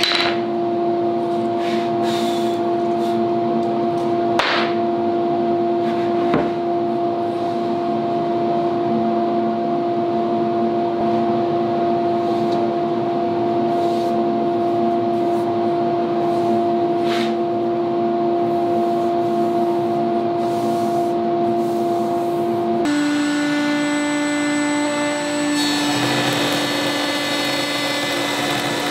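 A workshop machine's motor runs with a steady whine. Near the end it changes to a table-mounted router spinning, which then cuts the pattern-shaped cot leg for about three seconds, a rougher cutting noise over the whine.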